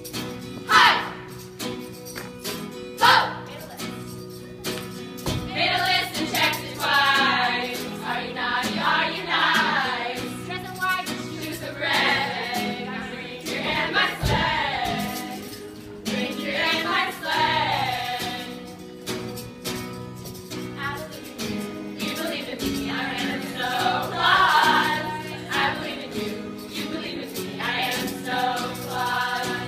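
A group of women's voices singing together over a strummed acoustic guitar, a live amateur performance into microphones. A few sharp loud hits sound in the first three seconds before the singing fills in.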